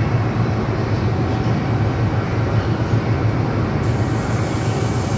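Steady, loud machine drone with a low hum from a powered-up CNC plasma cutting table and its equipment. About four seconds in, a high hiss joins it and carries on.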